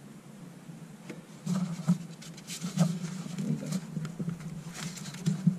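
EGR valve being wiggled and tugged by hand in the engine bay: irregular clicks and knocks, starting about a second and a half in. The valve is still held by a bolt, so it doesn't come free.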